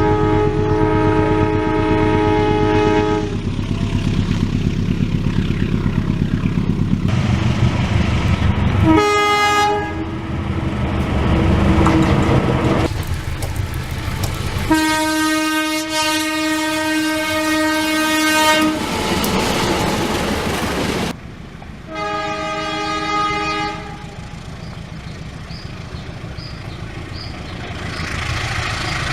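Indonesian diesel locomotive horn sounding four separate blasts of several tones at once: about three seconds at the start, a brief one around nine seconds in, a long one of about four seconds in the middle, and a short one near the end. Between the blasts there is the low rumble of locomotive engines and passing trains, with wheel clatter. These are horn signals of the kind Indonesian railways call Semboyan 35.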